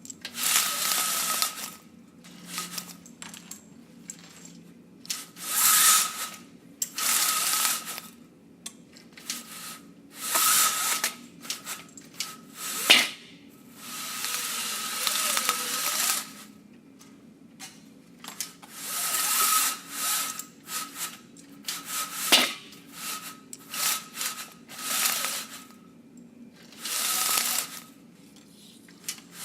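Metal office blinds rattling as they are handled, in repeated clattering bursts of a second or two with short pauses between. A faint metallic ring sounds in each burst, and a couple of sharper clacks stand out.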